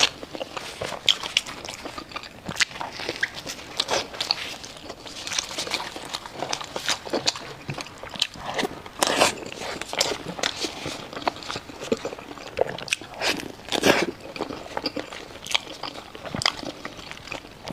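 Close-miked eating: someone biting into and chewing crunchy food, giving irregular crisp crunches and crackles.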